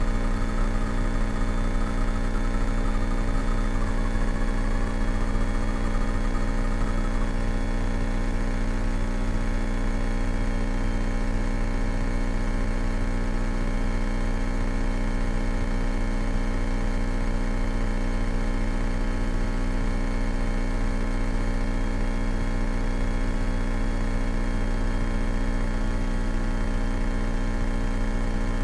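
Steady engine drone of a Cessna 172K's four-cylinder Lycoming O-320 and propeller, heard from inside the cabin, even in pitch and level. A faint wavering high tone runs over it for the first seven seconds or so.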